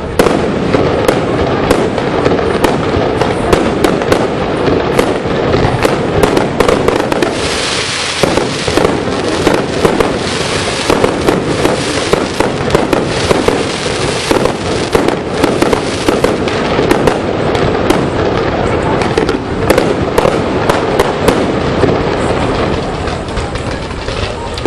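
Fireworks display: aerial shells bursting in a rapid, unbroken barrage of bangs and crackles, with a denser spell of crackling from about a third of the way in to past the middle.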